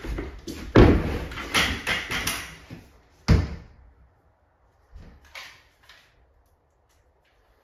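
Knocks and clattering as a cabinet door is picked up and handled, with a sharp knock a little over three seconds in and a few light clicks afterwards.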